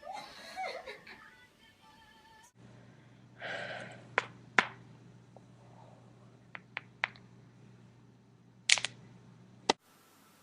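Joints cracking during chiropractic neck and back manipulation: a series of sharp pops, the loudest about four and a half seconds in, several lighter ones around seven seconds and two more strong pops near the end. A short voice-like sound comes just before the first pops.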